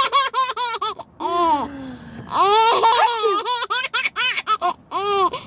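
A baby laughing hard: quick runs of high-pitched giggles at the start and again near the end, with longer drawn-out vocal sounds between them, about a second and two and a half seconds in.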